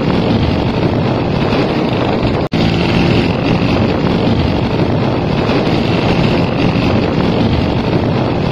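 Old motorcycle's engine running as it is ridden, buried in heavy wind noise on the microphone. The sound drops out for an instant about two and a half seconds in.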